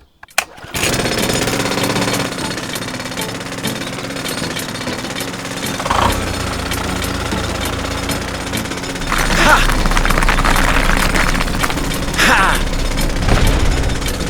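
A fast, steady mechanical rattle, growing louder about nine seconds in.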